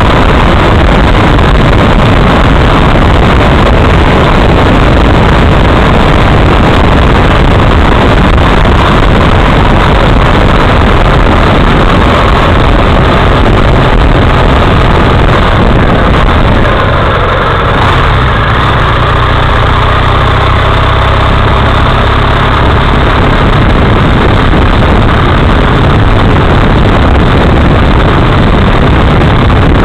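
Loud, steady engine and wind noise while riding a motorcycle uphill, heard through a camera microphone close to the vehicle. Around the middle the rush eases a little and a steadier low engine hum comes through.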